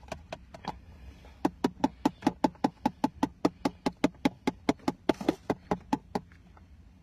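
Plastic bottle of school glue knocked in quick, even taps, about five a second, while held upside down over a plastic container to get the last glue out. A few softer clicks come first, then the loud taps run for about five seconds and stop.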